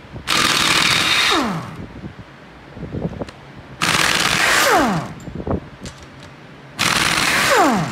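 Air impact wrench hammering in three bursts of about a second each, loosening the cylinder head bolts on a Mini Cooper S four-cylinder engine. Each burst ends with a falling whine as the tool spins down, and there are light clicks between the bursts.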